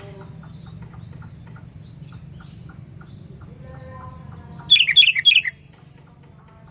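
Sooty-headed bulbul (kutilang) call: a short, loud burst of quick, sharp whistled notes a little under five seconds in, lasting under a second. Fainter rapid chirps and a low hum run under it.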